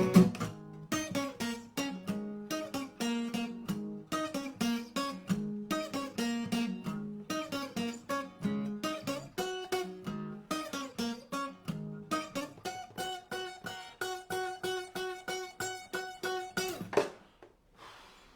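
Acoustic guitar played solo: a quick run of plucked notes, closing with a final chord about seventeen seconds in that rings out and fades.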